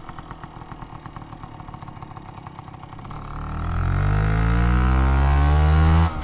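Vespa PX 200 scooter's single-cylinder two-stroke engine idling with a rapid even putter through its old exhaust, then revved up about three seconds in and held at high revs, dipping briefly near the end.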